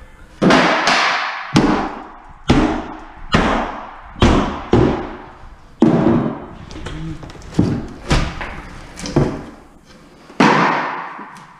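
Heavy knocks and bangs on an old built-in wooden cabinet frame as it is beaten and wrenched loose from the wall, about a dozen blows roughly a second apart, each with a short echoing tail.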